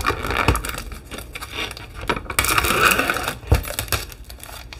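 Light clicks and knocks of a plastic yogurt tub being handled on a stone countertop, fingers picking at its rim, with a short crinkly scrape between about two and three seconds in.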